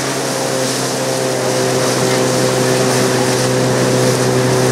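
Motorboat engine running at a steady speed, an even hum, with water and wind rushing over it.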